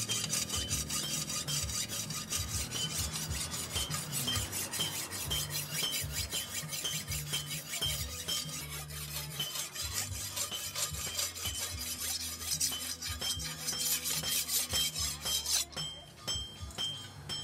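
Steel machete blade being ground by hand with a large solid sharpening stone, rubbed back and forth in a rasping stroke about twice a second. The strokes stop briefly near the end, then resume.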